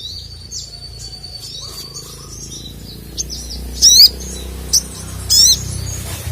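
Sogon (sogok ontong) songbird calling. A long, thin, high whistle is held for about two seconds, then comes a series of sharp, rapid zigzag chirps, the loudest about four seconds in.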